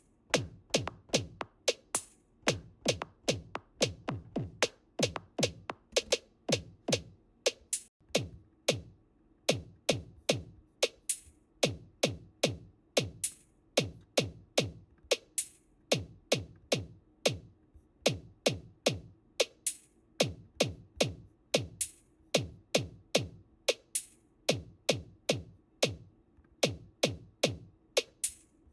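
Electronic drum-machine beat triggered from the MIDI keyboard's drum pads: a steady groove of about two to three hits a second, deep kicks that slide down in pitch mixed with sharp hi-hat and snare hits.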